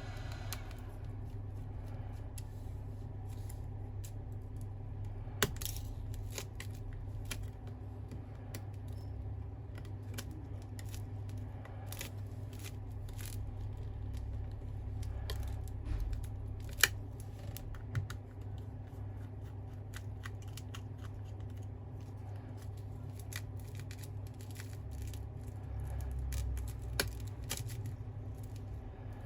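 Small, irregular clicks, ticks and scrapes of hand tools working on smartphone parts during disassembly, with a few sharper clicks, over a steady low hum.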